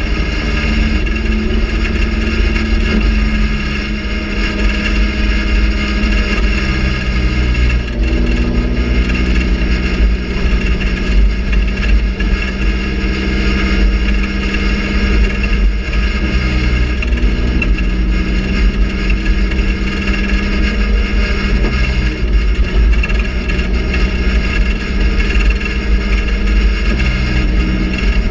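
Raspy GM Quad 4 inline-four race engine heard from inside the cockpit, revving hard and easing off as the car laps a dirt oval. Its note drops and climbs every few seconds.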